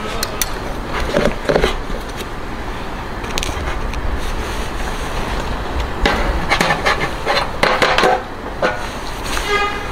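Metal hook and rod knocking and clinking against a stainless steel roasting tray a few times, over a steady low rumble.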